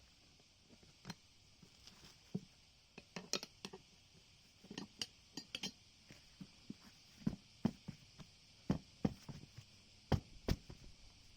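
Metal tools and parts clinking and knocking at irregular intervals, many light strikes, the loudest few in the last third.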